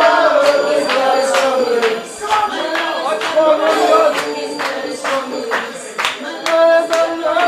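Music: a sung vocal line with sharp percussion hits or claps.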